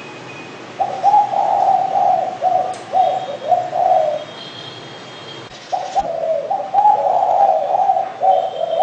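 Spotted dove (derkuku) cooing: two long phrases of low, repeated coo notes, the first starting about a second in and the second starting just before the six-second mark. Faint high chirps from another small bird sound in the background.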